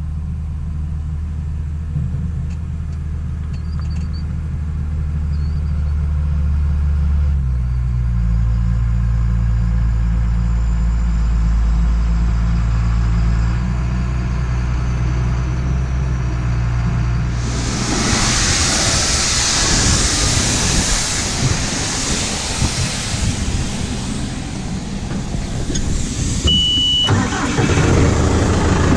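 Diesel engine of a John Deere farm machine idling steadily while it warms up, its note shifting slightly twice. About two-thirds of the way in, a much louder rushing machinery noise sets in, with a short high beep near the end.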